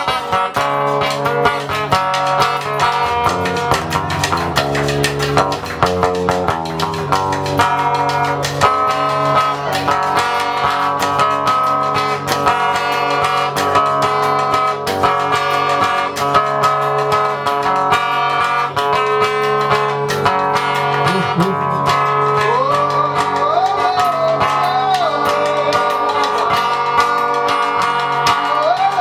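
Samba de roda music: plucked strings playing over steady percussive strokes, with a singing voice coming in about three-quarters of the way through.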